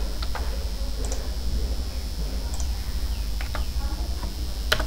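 Scattered clicks of a computer mouse and keyboard, with a quick run of several taps past the middle and the sharpest click near the end, over a steady low electrical hum.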